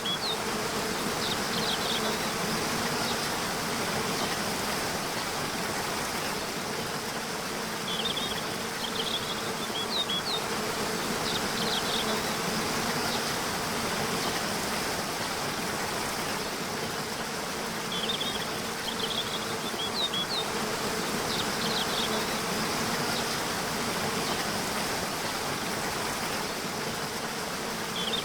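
Waterfall rushing steadily, with small birds chirping in short clusters high up every few seconds, and a steady low hum underneath.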